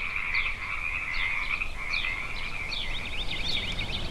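A chorus of frogs calling by a pond, a steady dense trill, with short falling chirps over it that come quickly one after another from about three seconds in.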